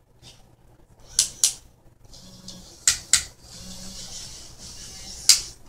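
Small geared motors of a hobby robotic arm whirring in short runs as the arm moves. Sharp clicks come in two pairs, about a second in and about three seconds in, and a single loudest click near the end.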